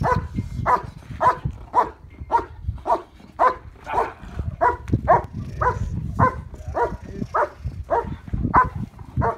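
German Shepherd barking in a fast, even rhythm, close to two barks a second. This is the sustained guard bark at the decoy in Schutzhund/IPO protection work.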